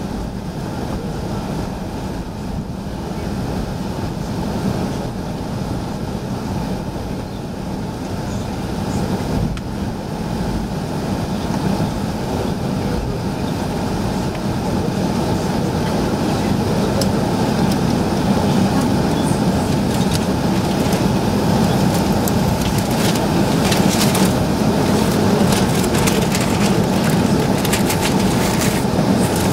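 Airbus A380 cabin noise at takeoff and initial climb, heard over the wing: a steady rush of the jet engines and airflow that grows a little louder about halfway through. Short faint clicks and rattles come in during the second half.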